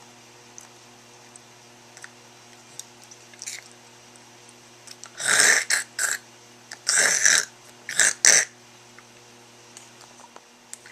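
A woman's short breathy mouth and throat noises close to the microphone: five quick bursts between about five and eight and a half seconds in. A steady electrical hum runs underneath.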